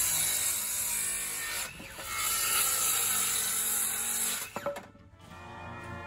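Power saw cutting through lumber in two long passes of about two and a half seconds each, with a brief break just under two seconds in, and a few sharp clicks as it stops near the end.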